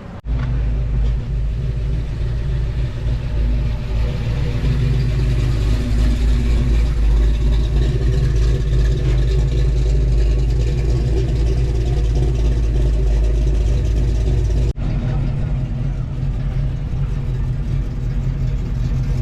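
Steady deep rumble and low hum of an idling vehicle engine, with a brief sharp break about fifteen seconds in.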